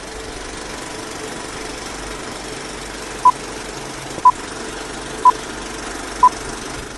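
Film-leader countdown sound effect: a steady film-projector whir with a short beep once a second, four beeps starting about three seconds in.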